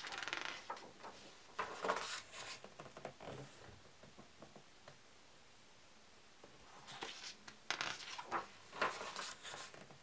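Pages of a hardcover book being turned by hand: paper rustling and flapping for the first three seconds or so, a quiet pause, then a second page turn from about seven seconds in.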